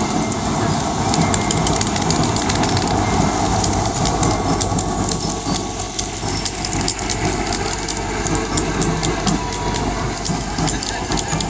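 Engine of a utility vehicle running as it drives slowly past, a steady clattering rumble that carries on as the next parade vehicle follows.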